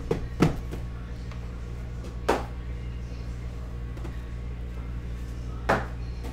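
Boxes of baseballs knocking as they are lifted and set down on a padded table mat: four short knocks, the last two a few seconds apart. Faint background music underneath.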